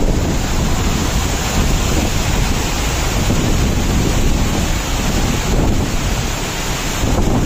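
Waterfall in full monsoon flow: a loud, steady rush of heavy falling water close by. Wind and spray buffet the microphone with a low rumble.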